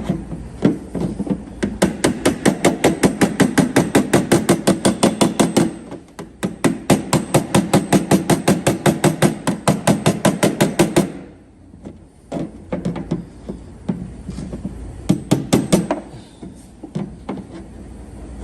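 Body hammer tapping out the dented steel quarter panel of an Audi Q5 with a dolly, in quick even taps about five a second: two long runs with a short break, then fewer, scattered taps after it stops about two thirds of the way in.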